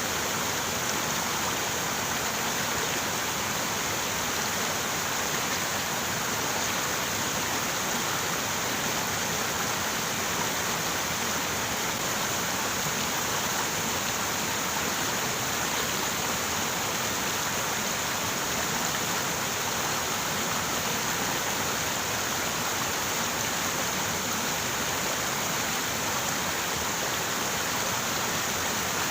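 River water running over rocks, a steady, even rushing that does not change.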